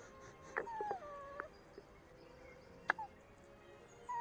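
Dog whining faintly: one short whine that slides down in pitch, starting about half a second in. A single sharp click near three seconds in.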